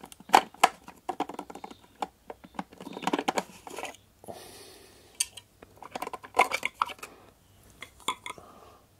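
Plastic parts of a food chopper being handled: the clear bowl, lid and blade pulled off the motor base and set down, giving a run of sharp plastic clicks, knocks and rattles.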